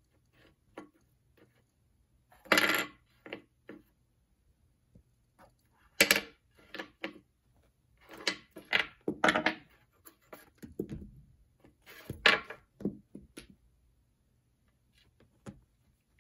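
Small wooden blocks being knocked over and pushed across a wooden tabletop by a cat's paw: an irregular string of clacks and short scrapes, loudest about two and a half, six and twelve seconds in.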